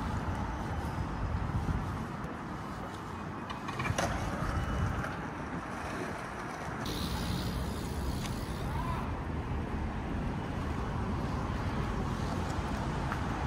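Road traffic on a city bridge: a steady rumble of passing cars and buses, with a brief click about four seconds in and a hissing passing vehicle a little past halfway.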